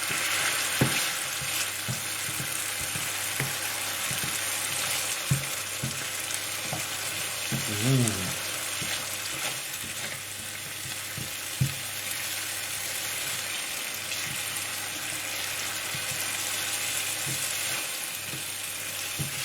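Curry base gravy and spices sizzling in a hot pan while being stirred, with the spatula clicking and scraping against the pan now and then.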